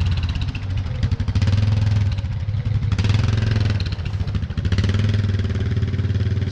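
Four-wheeler (ATV) engine running steadily close by, with a rapid, even firing pulse; the level dips briefly a few times.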